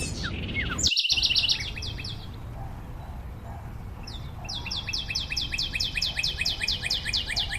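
Birds calling in rapid runs of short, high chirping notes, about eight a second: a brief run about a second in, then a longer steady run from about four seconds in.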